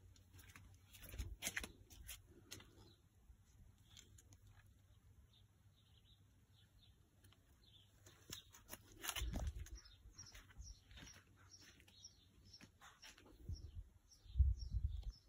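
Small birds chirping: short high chirps, coming about two or three a second in the second half. A few low thumps and rumbles on the microphone, about nine seconds in and again near the end, are the loudest sounds.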